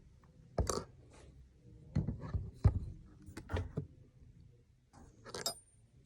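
Prosthetic hook hands handling a leather awl and thread: a handful of irregular small clicks and knocks with light scraping between them.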